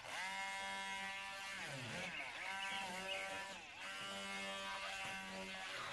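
Immersion blender motor whirring as it purees banana slices into a thick cream. Its whine rises as it starts, then dips in pitch and picks up again twice, about two seconds in and near four seconds.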